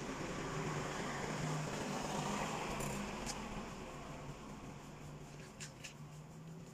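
A passing vehicle's engine and road noise: a low steady hum with a hiss that swells about two seconds in and fades away.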